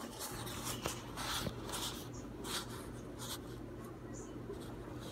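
Faint scratchy rustling in a string of short bursts, over a low steady hum.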